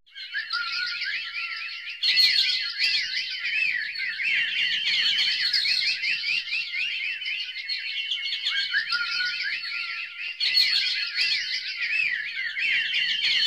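Dense, continuous high chirping and warbling: many quick rising and falling tones overlapping, getting louder about two seconds in.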